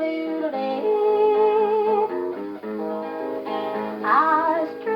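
A 78 rpm record playing on an HMV 156 wind-up gramophone: guitar-led music between sung lines, with a narrow, top-cut sound and a wavering glide about four seconds in.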